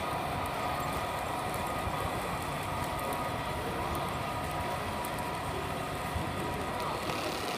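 Model freight train cars rolling past close by on their track: a steady rolling rumble with faint light ticks of wheels on the rails.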